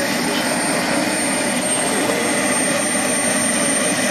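Jetcat SPT-10RX small gas-turbine turboprop of a 1:4 scale DHC-2 Beaver model running steadily in flight. A high, even turbine whine sits over a constant rush of engine and propeller noise.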